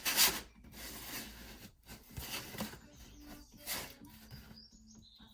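Cut pieces of wood flooring being handled and laid against one another: a few short scraping rubs, the loudest right at the start.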